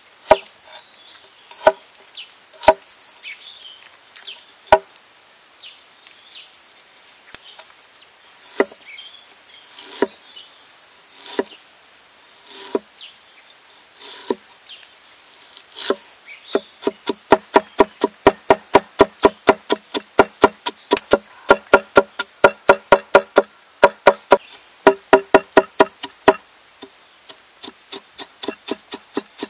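Steel cleaver cutting ginger on a wooden chopping board. First come single slicing knocks about a second or more apart, then, about halfway through, fast mincing strokes at roughly four a second, each knock with a short ring.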